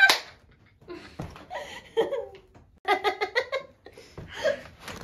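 A young person laughing hard in bursts, with a quick run of short laughs about three seconds in.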